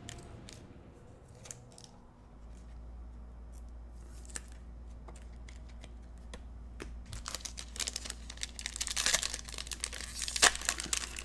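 The foil wrapper of a Panini Prizm football card pack crinkling and tearing as it is ripped open by hand, starting about seven seconds in. Before that only a few faint clicks over a low hum.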